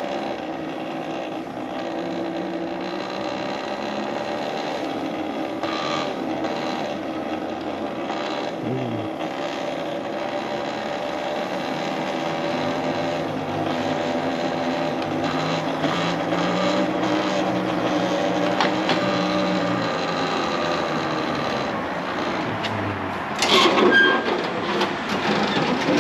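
Talaria Sting R MX4 electric dirt bike riding off in eco mode, its motor whining and rising and falling in pitch as the speed changes. A loud, brief rush of noise near the end.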